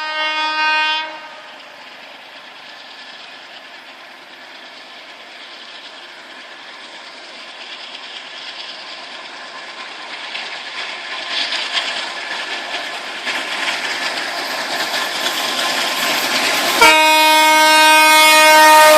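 A loud, steady horn blast stops about a second in. A rushing, rattling noise then builds steadily louder as something approaches. About two seconds before the end the horn sounds again, louder and held.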